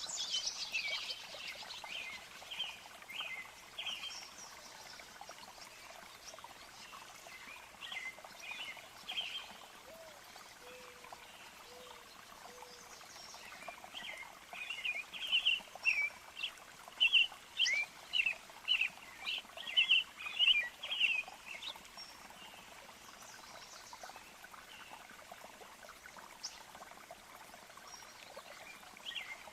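Birds chirping and singing over a faint steady hiss of a natural soundscape, with a dense run of short quick chirps about halfway through.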